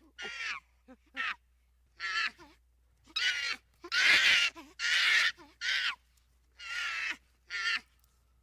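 A bird giving a series of harsh, rasping calls, about nine of them at uneven intervals, each under a second long.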